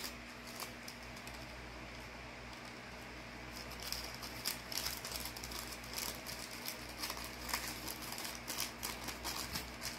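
Small clear plastic bag crinkling and rustling in the fingers as a folded fishing rig is worked into it: irregular soft crinkles and light ticks, picking up about three and a half seconds in.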